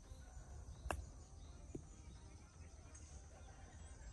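A single sharp click of a 54° wedge striking a golf ball on a short approach shot, about a second in, with a fainter tap under a second later, over a low wind rumble and a steady insect drone.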